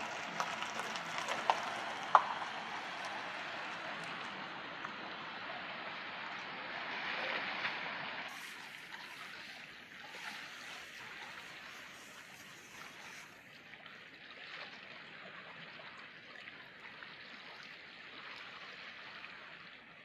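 Harbour water lapping and trickling, a soft steady wash that is louder for the first eight seconds and then drops quieter. A couple of brief sharp clicks stand out about two seconds in.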